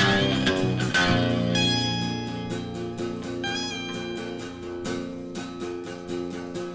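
Instrumental break of a blues song: guitar chords struck in rhythm, then one chord left ringing and slowly fading, with a high note over it that bends briefly.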